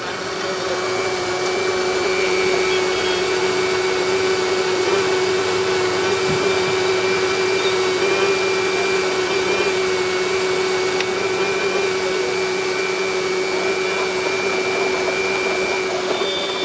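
Electric countertop mixer-grinder (blender) running steadily at one pitch, blending mango with milk and ice into a drink.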